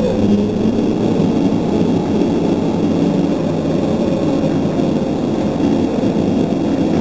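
Gym crowd at a basketball game shouting and yelling all at once, a steady loud din of many voices.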